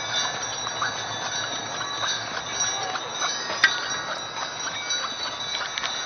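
Brass harness bells on a team of Percheron draft horses jingling continuously as the team moves, with scattered sharp clinks, one louder clink a little past the middle.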